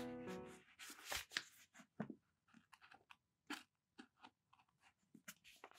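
The last held notes of background music fade out, then faint, irregular soft flicks and rustles of paper book pages turning.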